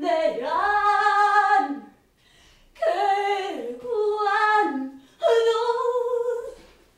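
A female voice singing unaccompanied: three long held phrases with short breaths between them.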